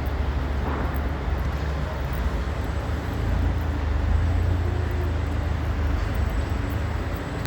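Steady low outdoor rumble of city background noise, such as distant traffic, growing a little louder midway, with no distinct knocks.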